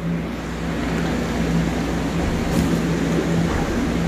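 Steady hum of a running fan with a rushing-air noise.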